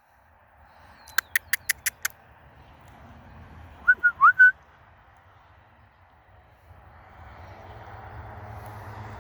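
A bird's short call of four quick whistled notes, gliding up and down in pitch, about four seconds in. Before it come five quick sharp clicks, and a low rumble builds near the end.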